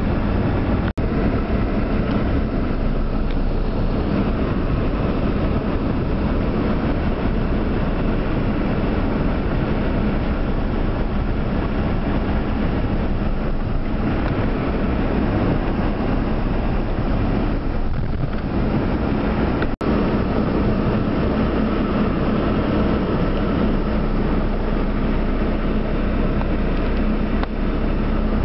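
A car's engine running and its tyres driving through floodwater on a rain-soaked street, heard from inside the cabin as a steady low rumble with a constant hum. The sound cuts out for an instant twice, once about a second in and again around two-thirds of the way through.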